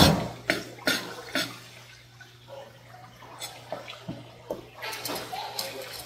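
Kitchen knife knocking against a plastic cutting board while a rock bream is filleted. A loud knock comes right at the start, then three more about half a second apart. After that come quieter scrapes and light knocks as the fish is handled on the board.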